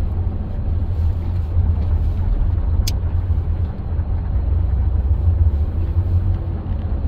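Car heard from inside the cabin while driving, with a steady low rumble of engine and tyres on the road. A single short click comes about three seconds in.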